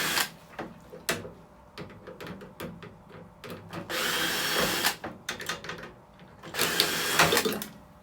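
Cordless power drill-driver running in short bursts of about a second, twice, undoing screws, with small clicks and knocks of metal parts being handled in between.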